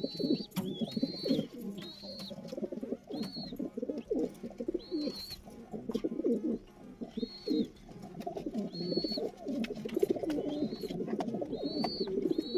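Several domestic pigeons cooing together in overlapping low coos, with short high whistled peeps about once a second.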